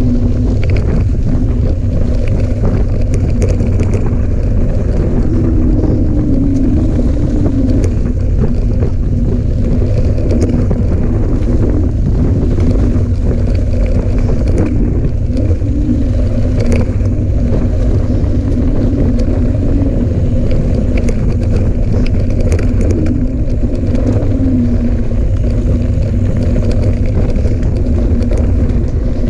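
Wind rushing over a bike-mounted action camera's microphone and mountain bike tyres rolling fast down a leaf-covered dirt trail: a loud, steady rumble with a steady hum under it and occasional knocks from bumps.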